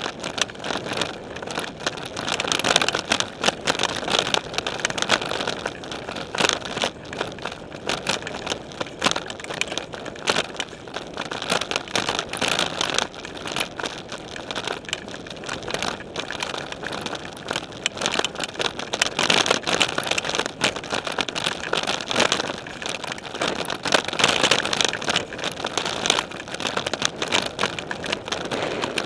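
Specialized Stumpjumper mountain bike rolling over a dirt singletrack, heard through its frame: a continuous clatter of small knocks, ticks and rattles, with tyre noise on the dirt.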